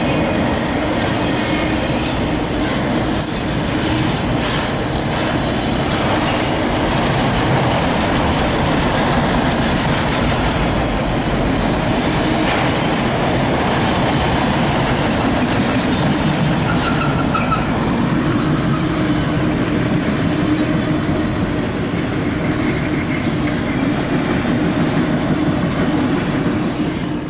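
A CSX freight train of empty autorack cars rolling past: a steady, loud rumble and clatter of steel wheels on rail, with some wheel squeal. The noise starts to fall away right at the end as the train clears.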